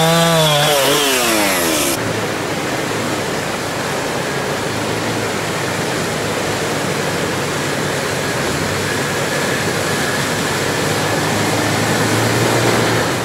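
A chainsaw cutting a fallen spruce trunk, its engine pitch dipping and recovering as it bogs in the cut, stops abruptly about two seconds in. Then rushing river water and splashing as a Toyota Land Cruiser drives through a shallow river, its engine running low underneath and getting louder near the end.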